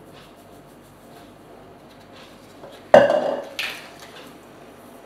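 Metal mesh sieve clanking as it is shaken to sift flour: a sharp metallic clatter about three seconds in, a second one just after, each dying away quickly.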